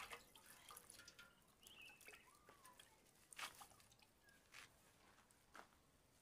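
Near silence, broken by a few faint scattered taps and clicks, the most distinct about halfway through and near the end, with a couple of faint short chirps early on.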